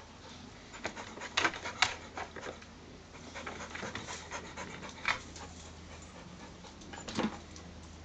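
A Clumber spaniel panting in short, irregular breaths, loudest about one and a half seconds in and again near the end.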